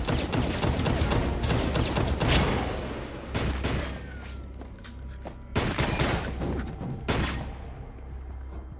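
Pistol gunfire in a shootout: a rapid run of shots for the first few seconds, then a few scattered louder shots near six and seven seconds in, each with a ringing echo.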